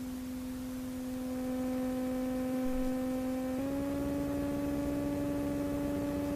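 Light-sport airplane engine droning steadily, heard through the cockpit intercom as a pure, humming tone. About three and a half seconds in, the pitch steps up slightly and gets a little louder as the power is raised.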